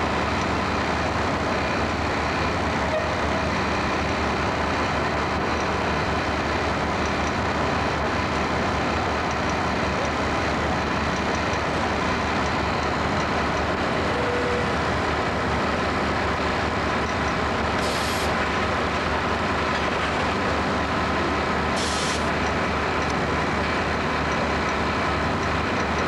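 Aerial ladder fire truck's engine running steadily with a dense, even drone. Two brief high hisses come about four seconds apart, late on.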